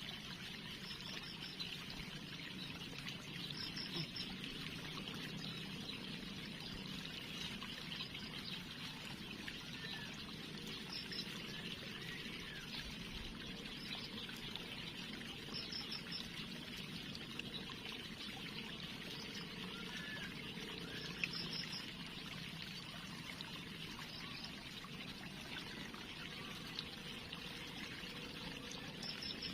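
Water trickling and flowing steadily, with a faint high chirp every few seconds.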